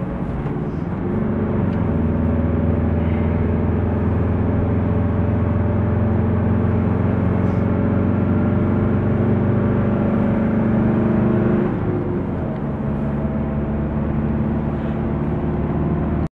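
Car engine and tyre noise heard from inside the cabin while driving on a highway. The engine note climbs about a second in and holds steady, then drops sharply about twelve seconds in as the car eases off or changes gear.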